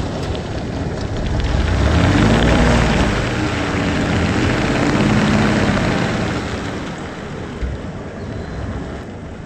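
Ford pickup truck's engine revving up and easing off twice as the truck crawls through mud, with tyre and mud noise underneath; the sound fades somewhat in the last few seconds.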